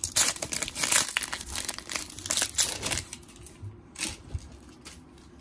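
Plastic wrapper of a trading-card pack being torn open and crinkled by hand, a dense crackling for about three seconds, then dying down to quieter handling of the cards.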